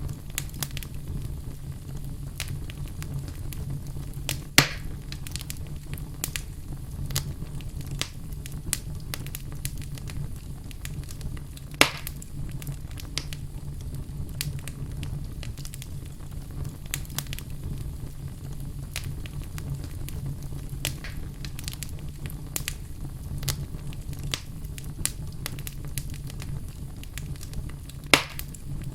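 Wood burning in a fireplace: a steady low rumble of flame with frequent small crackles, and three louder pops, about 5 and 12 seconds in and near the end.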